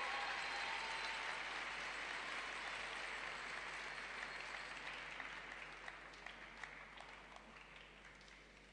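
Arena audience applauding, the applause gradually dying away to a few scattered individual claps near the end.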